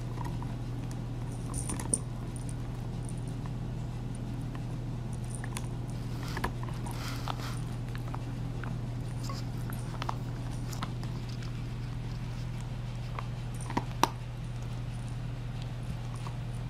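A dog gnawing a rawhide chew while a cat tussles with it on carpet: scattered soft clicks and scuffs over a steady low hum.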